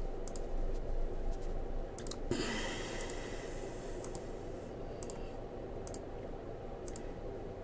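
Computer mouse button clicked about once a second, each click a short double tick of press and release.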